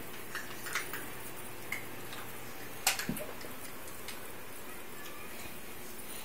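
Yorkshire terrier puppy eating from a plastic bowl of dry kibble: a few scattered light clicks and taps, the sharpest one about three seconds in, followed by a soft thump.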